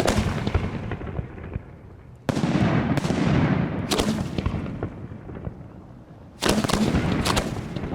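1.3G display fireworks shells bursting in volleys: a burst at the start, a run of bursts from about two seconds in, and another volley near the end, each fading out slowly.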